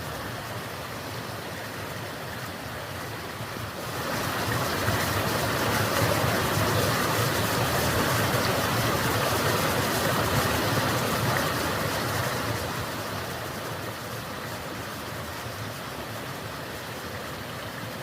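Steady rushing noise that swells about four seconds in and eases off again after about twelve seconds.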